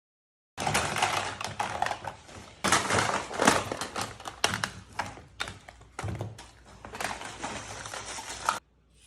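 Irregular clicking and clattering, like rapid taps or small objects being knocked and handled. It starts about half a second in and breaks off shortly before the end.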